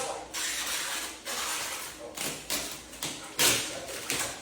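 Vinyl car-wrap film being worked by hand: a run of short scraping swishes, several in quick succession, as the film is smoothed and handled.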